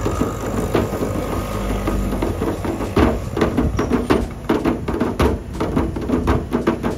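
A large rabana, the Sri Lankan frame drum, beaten with bare hands by several players at once in a fast running rhythm of sharp strikes, growing denser and louder about halfway through.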